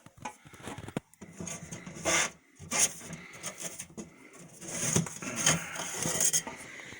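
Thin aluminum sheet scraping and rattling against the metal of a sheet-metal shear as the freshly cut strip is pulled out and handled, in a run of uneven scrapes and knocks, loudest about two, three and five seconds in.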